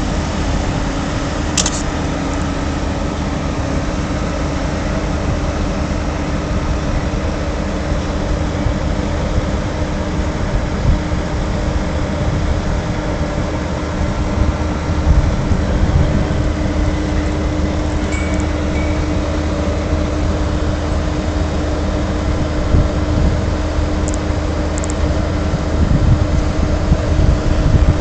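Heavy oilfield trucks' diesel engines running, a steady low rumble with a constant hum, growing louder and rougher in the second half. A few faint clicks or clanks sound over it.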